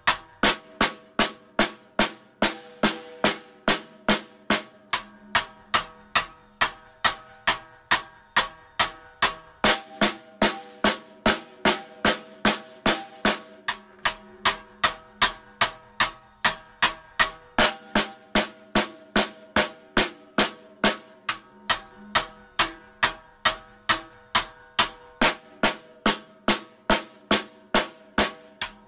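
Instrumental stretch of a song: a drum kit, led by the snare, keeps a steady beat of about two and a half hits a second over held keyboard chords.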